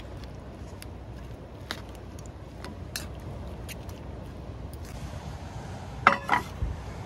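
Metal spoon and chopsticks clicking faintly against a stainless steel bowl while tossing a salad, then a stainless steel plate clanking down twice in quick succession with a short metallic ring, about six seconds in. A steady low rumble runs underneath.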